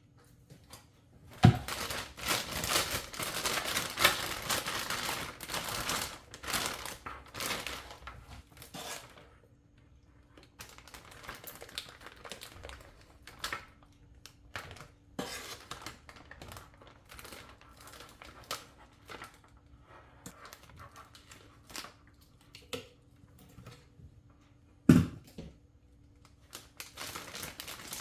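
Kitchen handling noises: irregular rustling and crinkling, busiest in the first several seconds, with a sharp knock about a second and a half in and another near the end.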